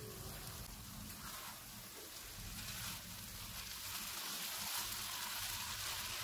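Vermicelli cooking in sugar syrup in a non-stick karahi on a gas flame, sizzling with a steady hiss and fine crackling.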